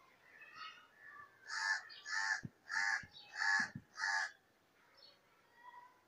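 A crow cawing five times in quick succession, harsh calls a little over half a second apart.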